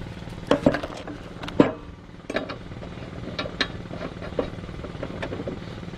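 Scattered sharp metallic clinks and knocks: a lawn tractor mower blade, its nut and an air impact wrench being handled and set down on the steel mower deck. A steady low mechanical hum runs underneath.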